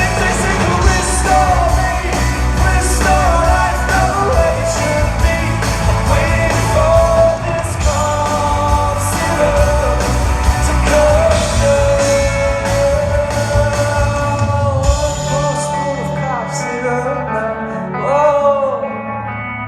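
Live rock band with a male lead singer, heard from the audience. About fifteen seconds in the drums and bass drop out, leaving a held chord and the voice.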